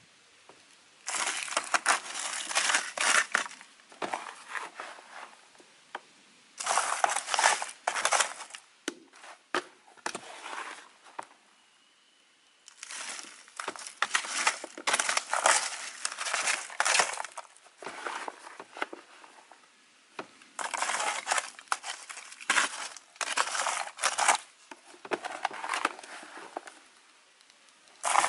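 Metal hand trowel scooping and scraping a loose soil and rice-husk mix across a plastic seedling plug tray: gritty scraping and rustling in spells of a few seconds, with short pauses between. Near the end more of the mix is tipped from a plastic tub onto the tray.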